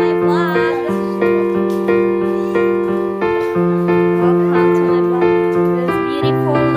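Background music: piano or electric-piano chords over a bass note that changes every couple of seconds, with a wavering melody line.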